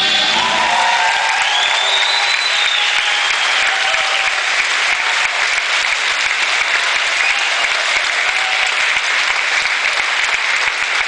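Audience applauding and cheering, breaking out as the dance music stops.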